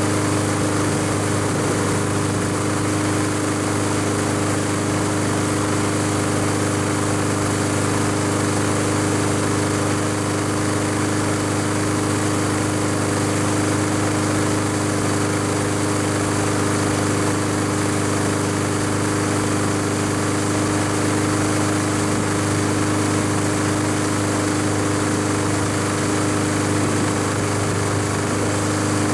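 Honda HRX217 lawn mower's single-cylinder engine running at a steady speed, just started after its thermowax choke actuator was replaced.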